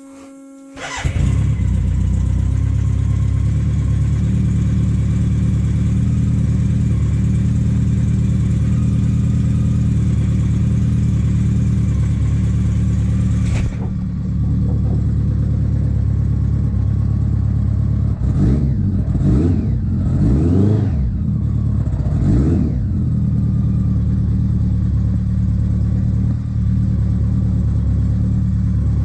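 BMW K100's four-cylinder engine starting about a second in, catching almost at once, then idling steadily. Midway through it is blipped four or five times in quick succession before settling back to idle.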